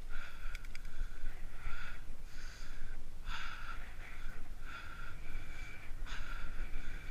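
Riding a bicycle on a paved path: a steady low wind and tyre rumble on the microphone, with short hissing bursts about once a second.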